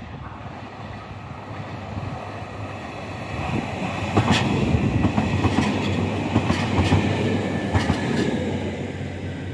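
JR Kyushu 821 series electric train approaching and running past close by, its noise building about three seconds in, with a series of sharp clacks as its wheels cross the rail joints.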